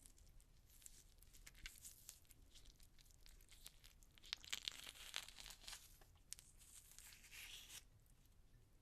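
Orange peel being torn away from the fruit by hand: a series of quiet, irregular ripping tears with sharp little crackles. The loudest tearing comes about halfway through, with a shorter rip near the end.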